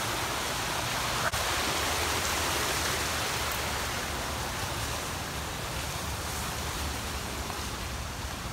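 Steady rushing noise, even and hiss-like, with a single sharp click about a second in.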